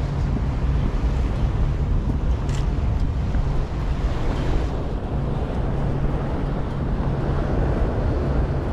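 Wind buffeting the microphone on a ferry's open bow deck, over the steady drone of the ferry's engine and water washing past. The engine's low hum fades in and out.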